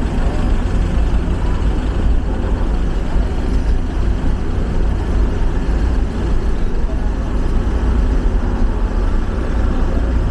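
Vehicle engine running with a steady low rumble and no change in pace.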